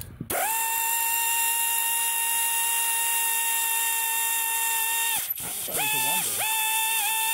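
Cordless power tool's motor spinning up and whining steadily for about five seconds as it runs out an oil pan bolt, then two shorter runs near the end with small dips in pitch.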